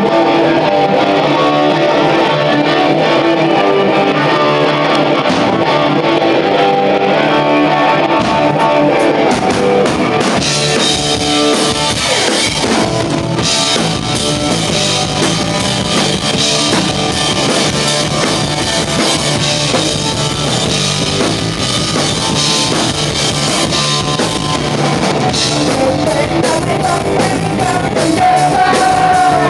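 Punk rock band playing live through amplifiers: electric guitar, bass and drum kit, with lead vocals. The sound gets brighter and fuller about ten seconds in.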